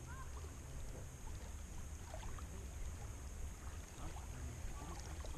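Wind rumbling on the microphone over small waves lapping at a rocky lake shore, with a few faint high chirps.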